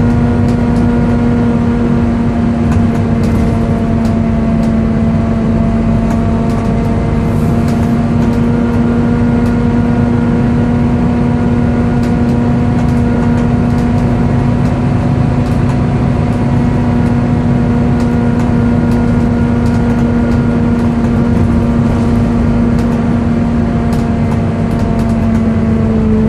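Volvo B7TL bus's cooling fan, the 'hoover', whining loud and screechy at a steady pitch over the low rumble of the engine, with faint rattles.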